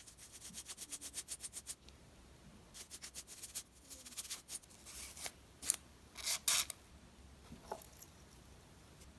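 Small metal clicks and scrapes from a Leatherman Squirt PS4 multi-tool being worked by hand. A fast run of ticks comes in the first two seconds, then several short scratchy bursts.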